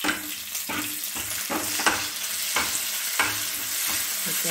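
Hot oil sizzling as green chillies, curry leaves and mustard seeds fry for a tempering (tadka). A steel spoon stirs through it, knocking and scraping against the metal pan in repeated strokes.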